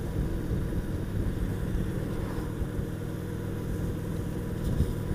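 Honda VT750S V-twin motorcycle engine running steadily while the bike cruises along the road, heard from the rider's seat.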